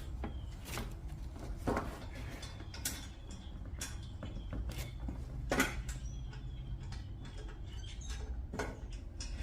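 Irregular light clicks and knocks of metal parts and hand tools being handled while exhaust headers are bolted on, about seven in all, over a steady low hum.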